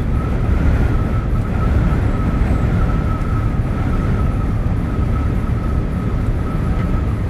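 Truck cab interior noise while driving: a steady low rumble of engine and road, with a faint steady high whine over it.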